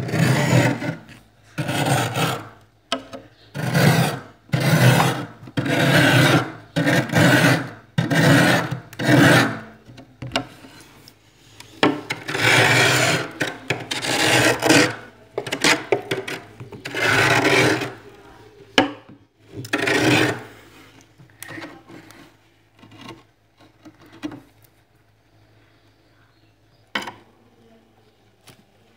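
Scraper blade raking thick frost off the inside walls of a freezer, in repeated rasping strokes of about one a second. The strokes then grow longer and slower, and thin to a few faint scrapes near the end.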